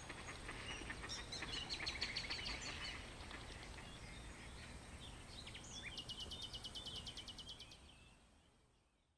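Faint birdsong outdoors: two rapid trills of evenly spaced high chirps, one about a second in and another about six seconds in, over a low steady background noise. The sound fades out near the end.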